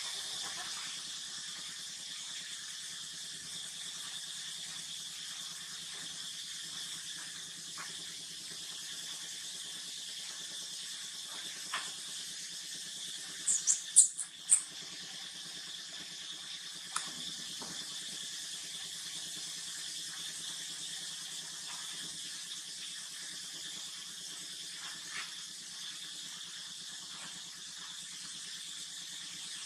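A steady high background hiss, with a quick run of four short, high-pitched squeaks about fourteen seconds in and a couple of faint clicks around it.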